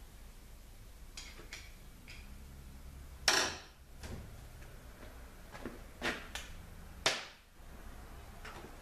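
Scattered clicks and clacks of hand tools and small transmission parts being handled on a workbench, with two sharper knocks ringing briefly, about three seconds in and again about seven seconds in.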